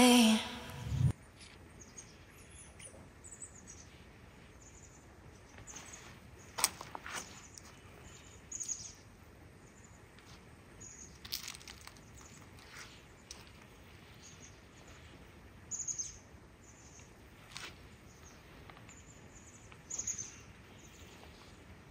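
Birds chirping in short, scattered calls over a quiet outdoor background, with the end of background music cutting off about a second in.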